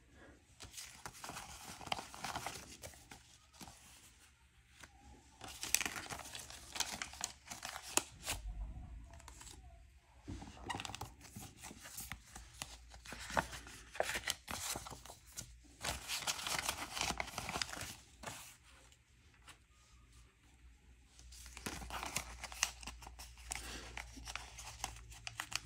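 Paper banknotes and envelopes rustling and crinkling as cash is pulled out and handled, in bursts of a few seconds with short pauses between.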